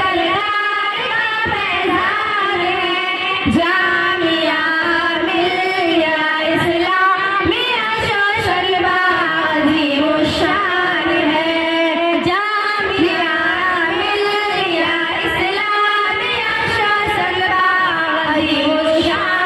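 A group of girls singing a tarana, a school anthem, together into microphones, with a continuous melody throughout.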